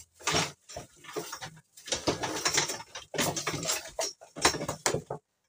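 Irregular metal clattering, rattling and knocks as an angle grinder fitted with a chainsaw bar-and-chain attachment is picked up and handled; the motor is not running. The clatter cuts off suddenly near the end.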